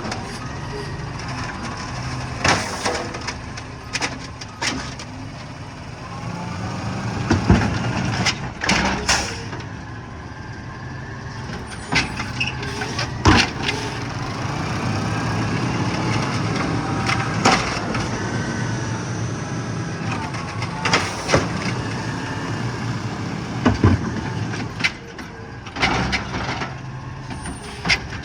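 Garbage truck running, with its hydraulics whining up and down in pitch and trash bins banging and clattering as they are lifted and emptied. Sharp bangs come irregularly throughout, louder than the engine.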